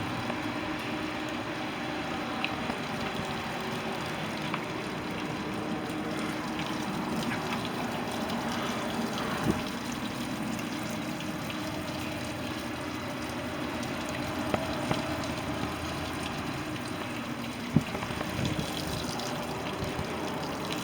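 Steady trickling, running liquid with a few light knocks.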